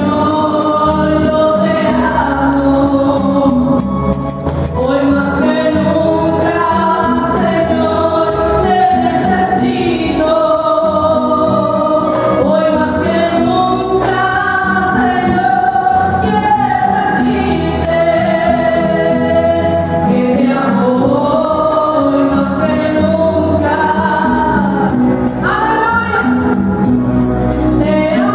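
A woman singing a Spanish-language worship song through a PA microphone, over live gospel accompaniment with a shaken tambourine keeping the beat.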